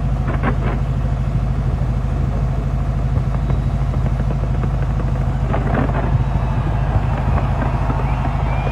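A dense fireworks barrage: rapid crackling pops over a steady low rumble, with louder clusters of crackle about half a second in and again about six seconds in.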